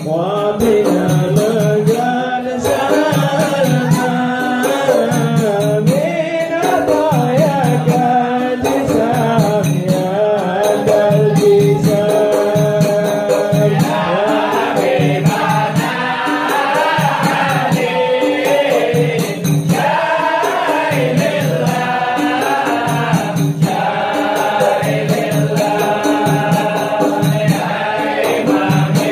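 A group of men singing an Arabic qasidah together in unison, a devotional chant, with hand-beaten frame drums (rebana) keeping the rhythm.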